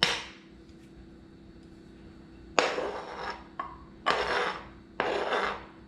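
Metal spoon scraping chopped raw fish across a plastic cutting board onto a plate: a sharp knock at the start that quickly fades, then three short scrapes about a second apart in the second half.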